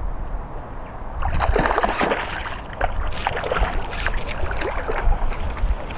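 A hooked trout splashing at the water's surface while it is played close in on a pole. Irregular splashes start about a second in and keep coming.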